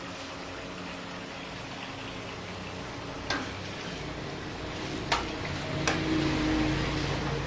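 A large steel pot of paye broth bubbling on the boil with a steady hiss, and ladles and skimmers stirring it. Three sharp metal clinks of the utensils against the pot and steel plates come in the second half, the loudest about five seconds in.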